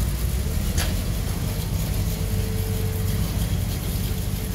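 Steady low rumble of a pickup truck's engine running at idle.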